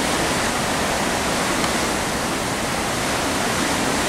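Steady rushing noise of wind and sea on the open deck of a cruise ship under way, with a low, uneven rumble from wind on the microphone.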